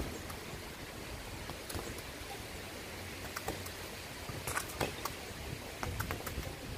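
Football being passed against a wall with alternate feet: a few scattered short knocks of kicks and rebounds off the wall, over a steady low background rumble.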